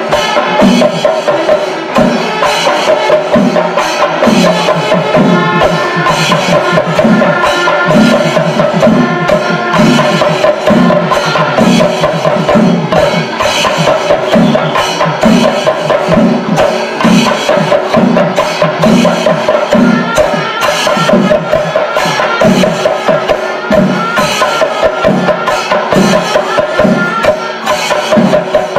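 Panchari melam: Kerala chenda drums beaten in a steady rhythm, with the deep strokes falling about twice a second, over the continuous ringing of ilathalam hand cymbals.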